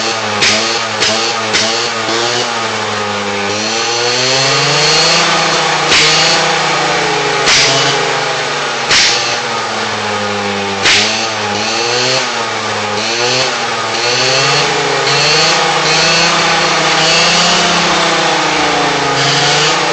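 Gilera scooter engine revved up and down on its stand with the rear wheel spinning free. Sharp pops from the exhaust, several a second at first and then singly every second or two, are backfires that throw sparks out of the exhaust.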